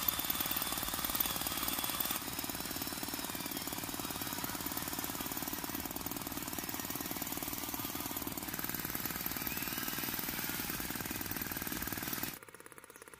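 Model tractor running under load as it drags a stone-loaded trailer through sand, with a fast, even knocking chug like an engine. The sound cuts off abruptly near the end.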